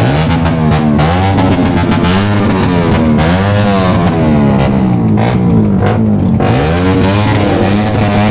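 Motorcycle engines with loud exhausts revved up and down over and over, the pitch sweeping down and back up about once a second over a steady low idle.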